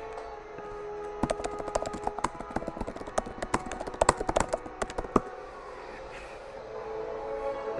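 A rapid, irregular run of sharp clicks and taps lasting about four seconds, starting about a second in and stopping suddenly near five seconds.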